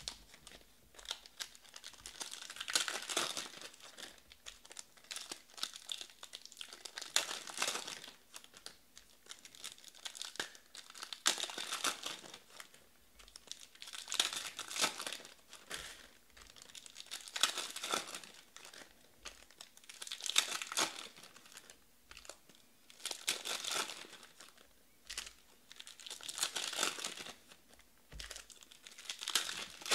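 Shiny trading-card pack wrappers torn open and crinkled in the hands, one pack after another, in bursts about every three seconds, with quieter card handling in between.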